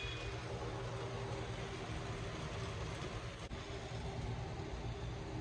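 Steady low mechanical hum and rumble, like an engine or machine running in the background.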